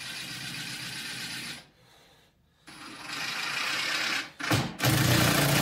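Ridgid cordless driver driving two screws into pine, a short run of about two seconds, then after a pause a second run that grows louder and is loudest near the end as the screw bites in and seats.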